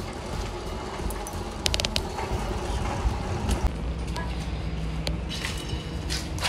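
Outdoor street ambience: a steady low rumble with a few sharp clicks and taps, and a steady low hum joining about two-thirds of the way in.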